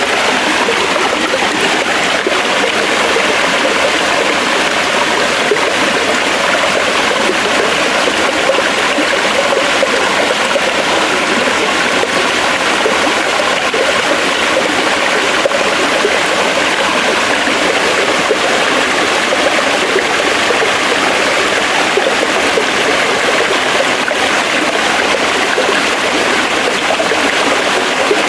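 Forest stream flowing over rocks: steady rushing and babbling water.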